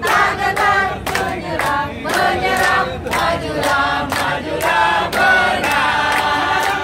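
A group of people singing a song together in chorus, with sharp regular beats about three times a second.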